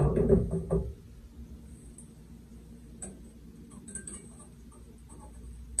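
A drum hit rings and fades out in the first second. After it come a few faint ticks and light scrapes of a spoon and spatula working eggs in a nonstick frying pan.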